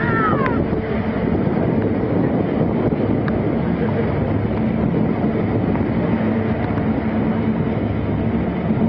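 Jet engines of a four-engine Ilyushin Il-76 transport running at low power as it moves slowly on the ground: a steady, loud noise with a low hum underneath.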